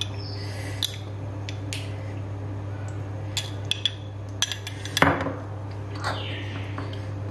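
Metal utensil clinking now and then against dishes as pizza toppings are spooned on, with the loudest knock about five seconds in. A steady low hum runs underneath.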